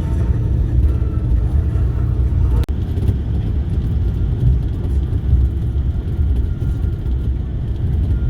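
Steady low road rumble of a tour bus driving, heard from inside the cabin, with a brief break about two and a half seconds in.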